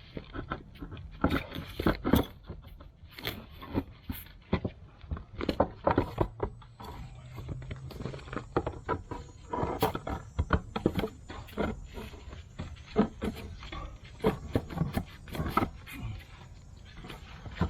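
Irregular knocks, thuds and scrapes of a heavy bluestone stair tread being handled and worked into place on the steps.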